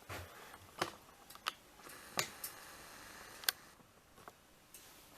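A handful of sharp, light clicks and taps, irregularly spaced about a second apart, from a microwave oven and its plate being handled once the heating has finished.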